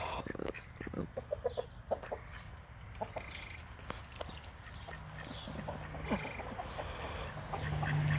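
Chickens clucking: a quick run of short clucks about a second in, then scattered single clucks.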